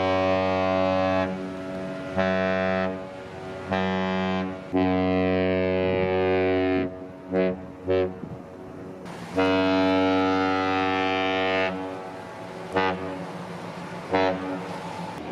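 Kahlenberg S-120 ship horn sounding a series of long, steady blasts at one deep pitch, broken by a few short toots.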